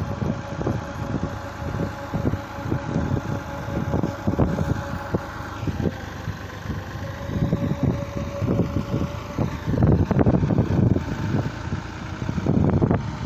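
Diesel tractor engine running steadily, with a thin steady whine over it, as it works the hydraulic tipper raising a trolley loaded with soil. The sound grows louder and rougher from about ten seconds in.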